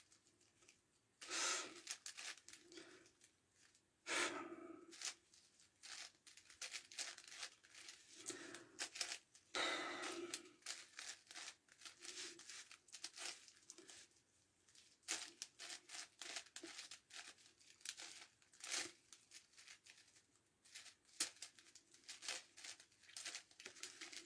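Plastic layers of a 9x9x9 Rubik's Cube being turned in the final moves of a solve: a faint, irregular run of quick clicks and short scraping rasps.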